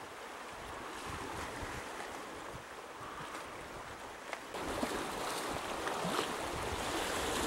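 Sea water washing and surging at the shore, with wind buffeting the microphone in fitful low rumbles. The rush of water grows louder a little past halfway.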